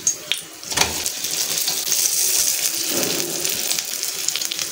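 Grated potato and egg batter frying in oil on an iron tawa: steady sizzling with many small crackles, louder for a moment about a second in.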